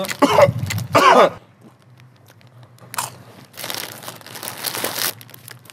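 Someone eating tortilla chips: crunchy bites and a crisp bag crinkling, in several short bursts from about three seconds in.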